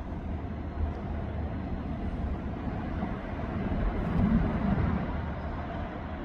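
A passing vehicle's low rumble, swelling to its loudest about four seconds in and then fading.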